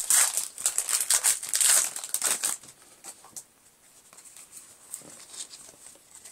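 Foil trading-card booster wrapper crinkling as the pack is torn open and the cards worked out of it. The crinkling is loud for about two and a half seconds, then drops to faint rustles and taps.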